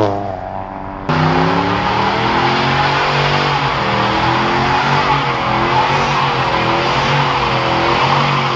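Pickup truck doing a burnout: its engine is held at high revs with the pitch wavering up and down, over a steady hiss of spinning, squealing tyres. Before this, another car is heard accelerating away, cut off abruptly about a second in.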